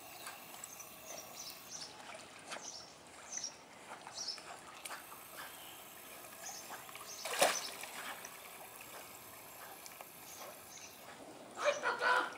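Pool water lapping and splashing gently as dogs swim through it, with one louder splash about seven seconds in. Short high bird chirps come and go.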